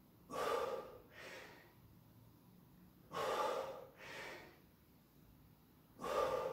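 A man breathing heavily with exertion during a bending exercise: a strong breath followed by a softer one, three times, about three seconds apart.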